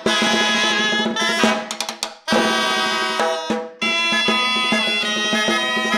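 Rumba band playing live, with drums and percussion, stopping short twice, about two and four seconds in.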